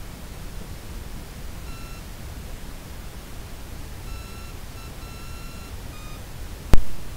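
Steady low hiss of a trail camera's recording, with a few short, flat, high-pitched beeping tones in the second half. A single loud sharp click comes near the end.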